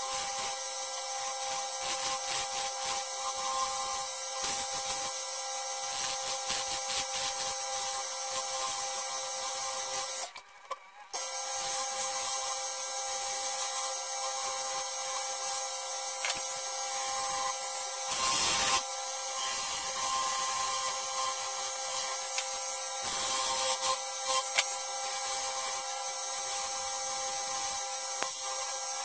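Wood lathe running with a steady hum while a hand-held turning tool scrapes and cuts beads into a spinning wooden spindle. The sound cuts out for about a second near the middle, and a louder brief cut comes a little before two-thirds of the way through.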